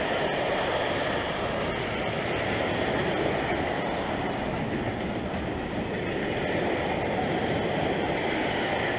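Loaded freight train of tarpaulin-covered wagons rolling past: a steady rumble and rush of steel wheels on the rails, with a few faint clicks.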